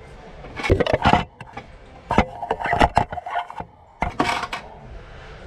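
Handling noise: irregular knocks, clicks and rattles in short clusters, stopping about a second before the end.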